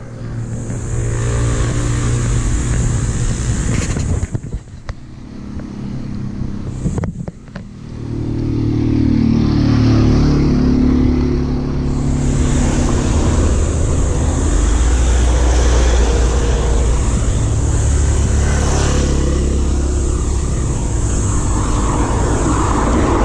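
Wind buffeting an action camera's microphone on a moving road bike: a loud, steady rush with heavy low rumble, dropping off for a few seconds early on. Around ten seconds in, a motor vehicle's engine is briefly heard.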